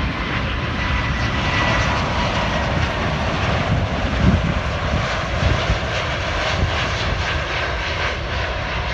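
Delta Boeing 777-200ER's twin jet engines on final approach and landing: a steady rumble and hiss with a faint high whine in the first couple of seconds, loudest about four seconds in as the airliner passes closest.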